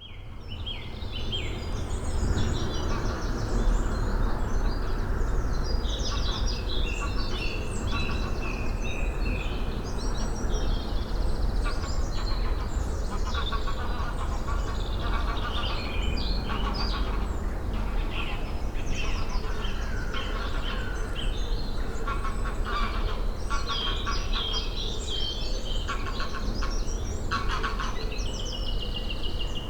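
Woodland birdsong from several birds at once, a dense run of overlapping chirps and trills, over a steady low rumble of background noise. The sound fades in over the first couple of seconds.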